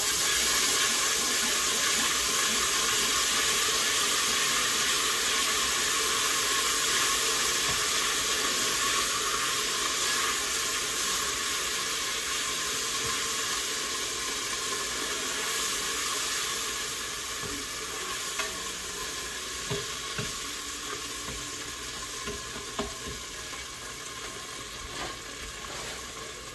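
Melted butter sizzling in a hot stainless stockpot as a block of cream cheese melts into it. The hiss slowly dies down. A wire whisk clicks against the pot now and then in the second half.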